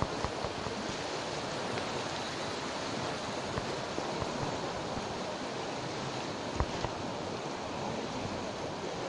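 Rushing water of a river in spate: a steady, even noise of fast-flowing floodwater, with a few faint clicks.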